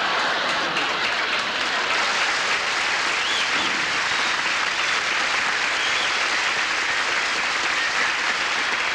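Studio audience applauding steadily after a sketch punchline.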